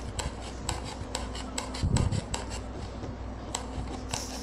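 Slime in a zip-lock bag being poked with a toothpick and pressed by hand, giving rapid, irregular clicking pops, several a second, over a low steady hum. A soft low thump about two seconds in.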